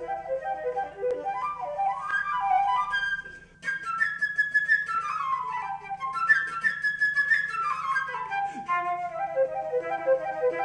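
Background music: a fast, bright instrumental melody of quickly repeated notes with falling runs. It breaks off briefly about three and a half seconds in, then picks up again.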